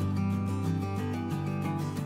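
Background instrumental music with sustained notes over a steady bass line.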